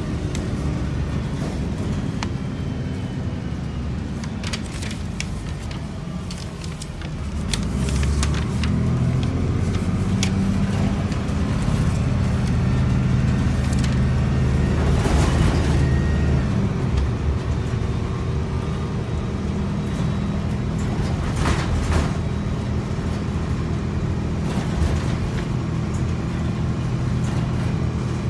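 City transit bus running, heard from inside the passenger cabin: a steady engine drone with scattered clicks and rattles, growing louder about seven seconds in.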